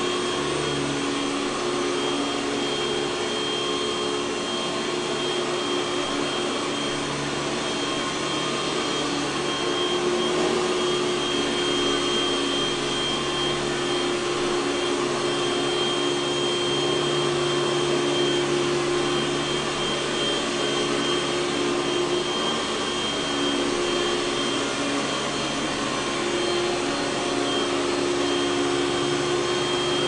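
Panasonic Jet-Flo MC-6220 upright vacuum cleaner running steadily while pushed back and forth over carpet, a continuous motor rush with a steady high whine on top.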